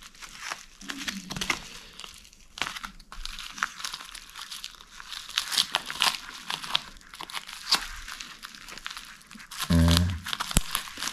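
Crinkling and crackling of a thin plastic mailer bag being handled and cut open with small scissors: a long run of irregular sharp crackles. A brief murmur of voice comes near the end.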